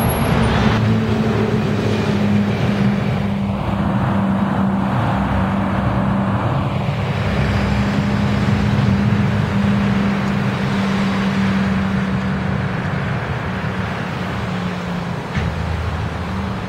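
Bus diesel engine running steadily with a low droning hum, among street traffic noise.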